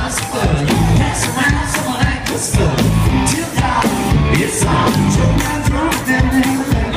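Live rock band playing loud in a club, with electric guitar, bass guitar, drums and a lead singer.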